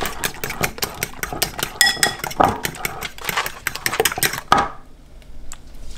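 A fork beating raw eggs in a bowl: quick clinking taps of the fork against the bowl, several a second, stopping near the end.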